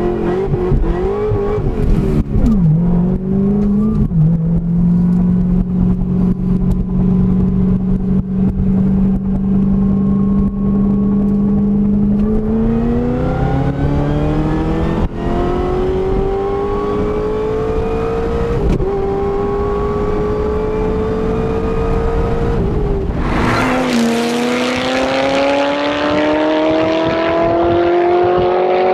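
Car engine revving unevenly, then running at a steady pitch before accelerating hard. The engine note climbs with short dips partway through, as at gear changes.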